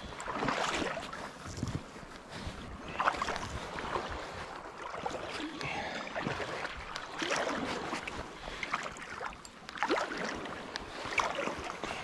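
Shallow sea water splashing and sloshing in irregular surges, with some wind on the microphone.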